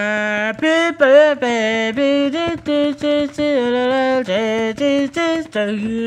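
A voice singing a wordless tune of held notes that step up and down in pitch, with short breaks between them and a wavering note about a second in.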